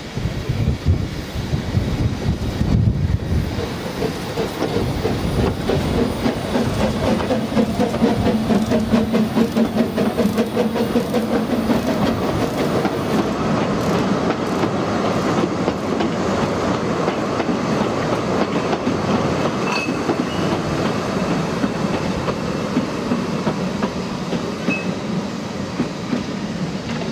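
Small narrow-gauge steam locomotive and its coaches pulling out of a station: steam exhaust and the wheels clattering over the rail joints as the train passes. A steady pitched tone sounds for several seconds, starting about six seconds in.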